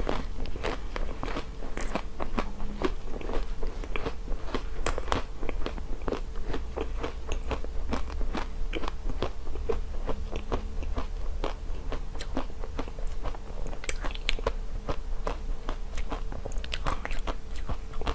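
Close-up biting and chewing of a frozen, hard-coated ice cream bar on a stick: the frozen shell cracks in a dense run of small crisp crunches and crackles throughout. A faint steady hum runs underneath.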